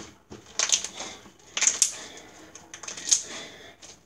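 Homemade slime being kneaded and stretched in the hands, giving a few short, sharp pops and crackles as it is squeezed, about a second apart.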